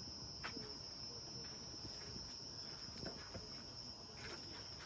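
Cricket trilling steadily on one high note, with a few light knocks now and then.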